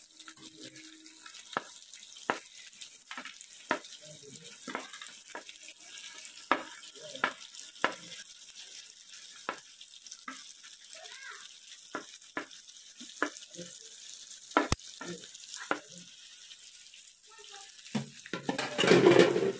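Metal spoon knocking and scraping against a cooking pan, irregular clinks about once a second, over a faint sizzle of masala frying in oil as boiled mutton pieces are added and stirred in. Near the end a louder burst of sizzling lasts about a second and a half.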